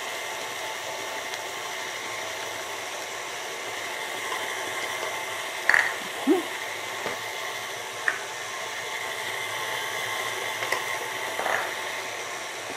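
KitchenAid Artisan stand mixer running steadily, its beater creaming butter, sugar and eggs in a steel bowl, with a few brief knocks about halfway through.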